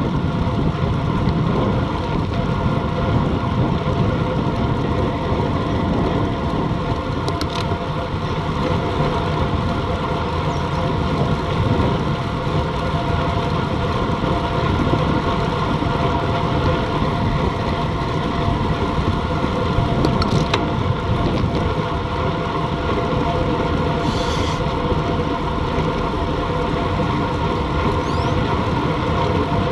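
Steady rush of wind on an action camera's microphone and tyre noise on asphalt from a bicycle riding at about 36–40 km/h, with a faint steady hum through it and a few brief ticks.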